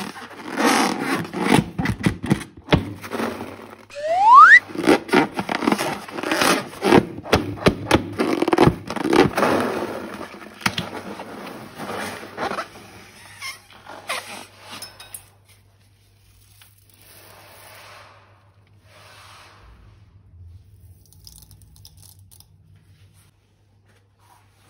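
Sticky slime being squeezed and worked by hand, with a run of wet squelches, crackles and little pops and a brief rising squeak about four seconds in. It grows much quieter after about fifteen seconds, leaving only faint handling sounds.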